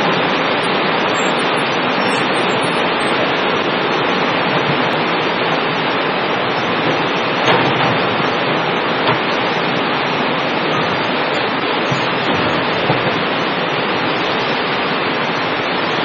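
Heavy rain pouring down steadily, a dense even hiss. A few brief knocks stand out about halfway through and again later.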